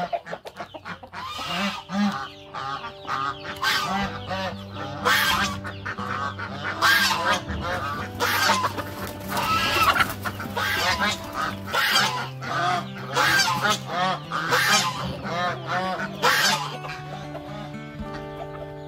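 Chickens and roosters squawking and cackling loudly, many overlapping sharp calls, over background music with steady held notes. The squawking stops near the end, leaving the music.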